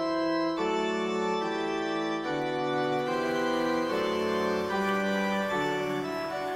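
Background music: a keyboard instrument with an organ-like sound playing held chords that change about once a second.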